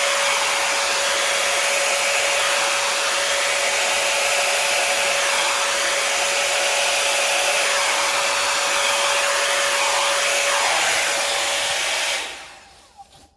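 YIHO blow dryer running steadily, a loud rush of air with a steady whine. It is switched off near the end and the rush dies away.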